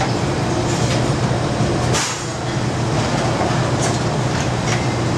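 Commercial gas range burning on high flame under sauté pans: a loud, steady roar with a low hum under it, and a few light clinks of utensils.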